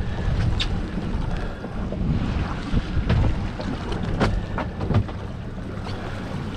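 Outboard motor idling at the stern, a steady low rumble, with wind buffeting the microphone and a few short sharp ticks.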